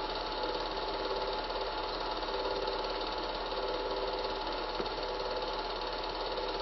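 Cine film projector running: a steady mechanical whirr and light rattle over a constant low mains hum.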